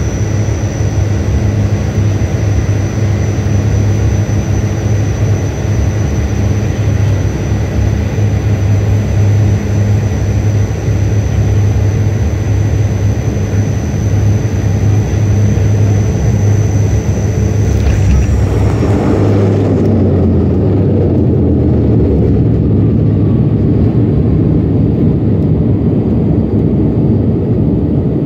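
Cabin noise of a turboprop airliner landing: a steady drone of engines and propellers with a thin high whine. About eighteen seconds in, the wheels are on the runway; the whine slides down and fades, and a heavier rushing rumble takes over as the plane rolls out and slows.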